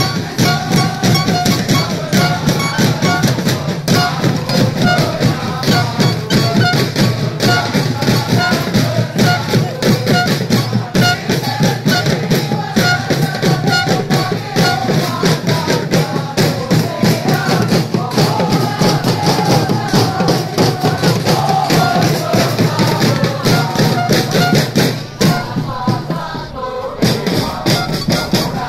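A large crowd of young people singing a supporters'-style song in unison, backed by drums and hand percussion beating a steady rhythm. The singing thins out briefly near the end, then comes back.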